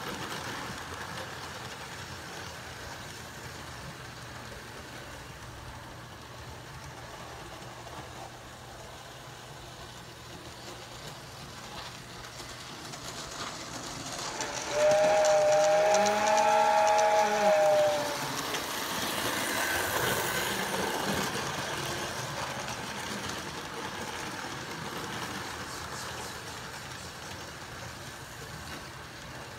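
HO scale model train running with a steady low rumble. About halfway through, a loud train whistle blows for about three seconds, its pitch bending at the start and end, and a hiss follows it.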